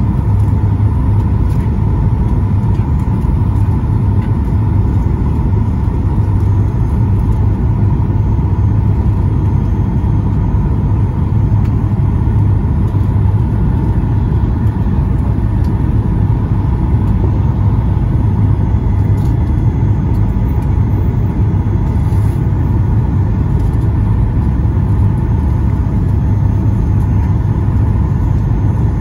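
Steady low rumble of cabin noise inside a Boeing 737 MAX 8 on approach, from its CFM LEAP-1B engines and the airflow over the airframe, with a faint steady hum higher up.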